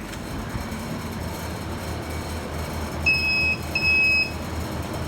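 Steady low hum of a walk-in cool room's refrigeration, with two high electronic beeps about three seconds in, each about half a second long.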